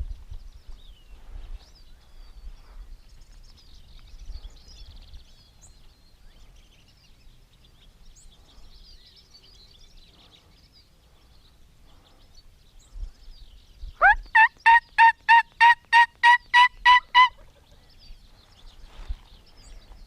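A loud, close run of about a dozen evenly spaced turkey yelps, three to four a second, over about three seconds; the first note slides upward. Faint songbirds sing in the background.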